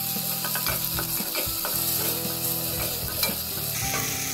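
Chopped onion and garlic sizzling in olive oil in a stainless steel pot, being sautéed until soft. A wooden spoon stirs them, scraping and tapping against the pot bottom several times.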